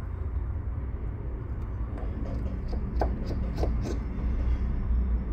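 A steady low rumble, with a few light clicks and ticks about two to four seconds in as small parts are handled on the work mat.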